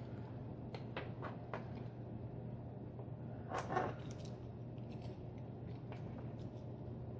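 Small metal clicks and a brief louder scraping rattle as tools work at a retaining clip on an Abus euro-profile lock cylinder being taken apart, over a steady low hum.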